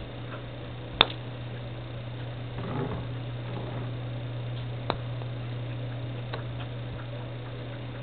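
Putter striking a golf ball on carpet: one sharp click about a second in, then a smaller click about four seconds later, over a steady low hum.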